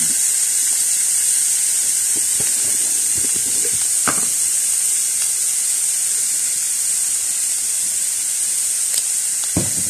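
Sliced buah kepayang (Pangium edule seeds) frying in oil in an aluminium wok, a steady sizzle with a few faint clicks.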